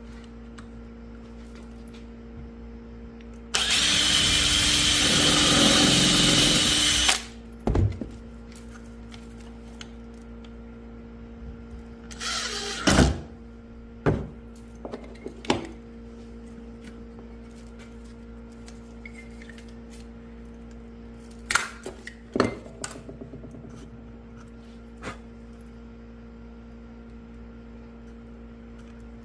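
A power tool runs for about four seconds, a few seconds in, then stops abruptly. Sharp knocks and clunks follow at scattered moments, with a steady low hum throughout.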